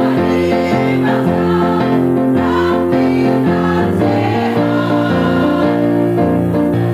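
Women's choir singing together to a keyboard accompaniment, one sustained chord following another.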